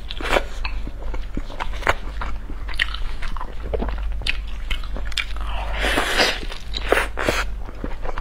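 Close-up mouth sounds of biting and chewing a large boiled dumpling with a soft, wet filling: moist smacking and chewing clicks throughout, with a longer breathy burst about six seconds in. A steady low hum lies underneath.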